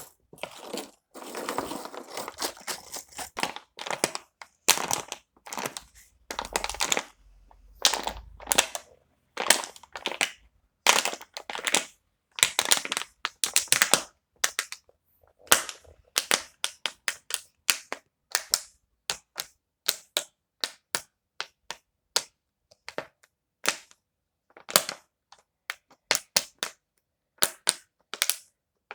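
Crinkling and rustling handling noise for the first few seconds, then a long run of separate sharp clicks and taps, irregularly spaced, with silence between them.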